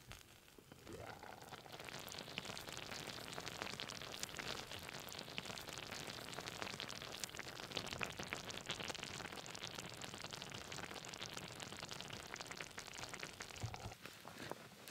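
Tomato sauce and melted cheese bubbling and sizzling in an uncovered pot over hot coals: a dense, crackling hiss of many small pops. It swells up about a second in.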